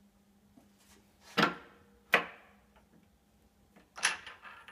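Metal knocks and clicks from the headstock spindle and drawbar of a Habegger JH 102 watchmaker's lathe as parts are worked loose from the spindle nose: two sharp knocks under a second apart, then a quick rattle of clicks near the end.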